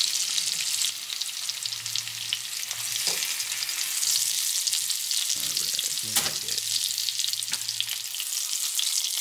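Salmon fillets frying in foaming garlic-thyme butter in a nonstick skillet: a steady crackling sizzle, with a few sharp clicks of metal tongs against the pan as the fillets are lifted out.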